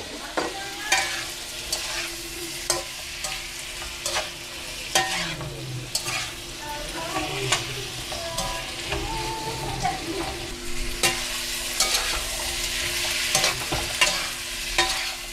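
Diced potatoes and carrots sizzling as they fry in butter and oil, with a utensil stirring them and clicking against the pan again and again.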